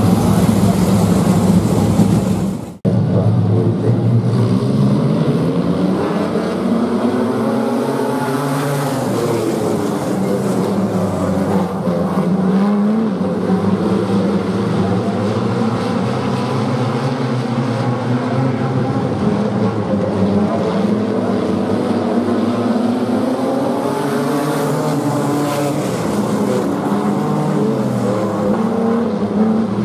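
Electronic intro music for about the first three seconds, cutting off abruptly. Then a pack of wingless sprint car engines running together, their pitches rising and falling as the cars rev and ease off on and off the throttle.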